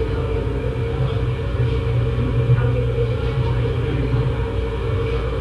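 Simulated background noise played for an earbud noise-cancelling test: a steady low rumble with a constant droning hum.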